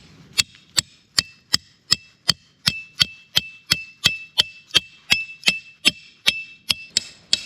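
Steady wood-block-like percussion beat, about two and a half knocks a second, each with a short high ring: the opening of background music, with pitched notes joining just after.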